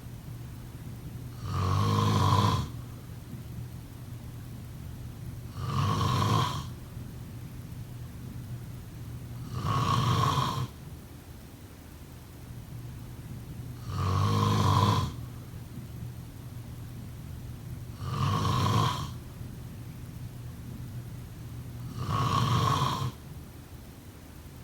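A person snoring: six snores about four seconds apart, each lasting about a second, over a steady low hum.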